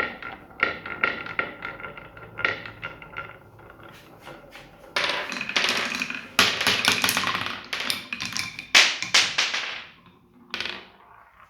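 Marbles rolling and clattering down a building-block marble run: a stream of quick clicks and knocks that turns into a dense, louder clatter about five seconds in as more marbles run down the track.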